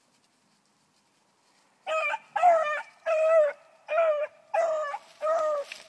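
Four-month-old bluetick beagle pup baying on a rabbit's track: about six short, high-pitched barks in an even rhythm, starting about two seconds in.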